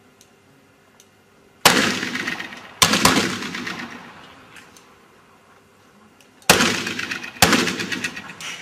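Four black-powder pistol shots, in two pairs about a second apart: one pair a little under two seconds in, the other around six and a half seconds. Each is a sharp report followed by a long echoing decay.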